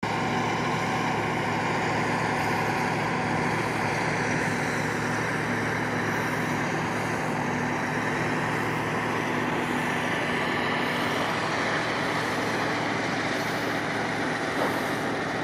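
A heavy vehicle engine running steadily over traffic-like road noise. Its low hum fades about eleven seconds in while the noise goes on.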